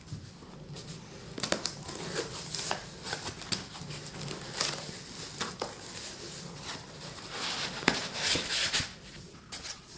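Cardboard shipping box being opened by hand: flaps folded back and a foam packing sheet lifted out, giving irregular crinkling, rustling and scraping with scattered sharp clicks. The handling grows busier near the end.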